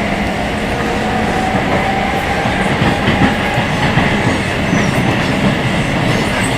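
Rio de Janeiro Metro Line 2 train running at speed between stations, heard from inside the car. The wheels rumble steadily on the track, and the traction motors growl with a steady hum.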